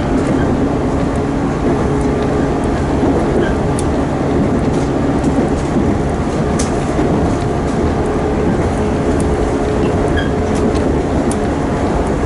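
Shinano Railway commuter train running between stations, heard from inside the carriage: a steady rumble of wheels on rail, with a faint hum and scattered light clicks.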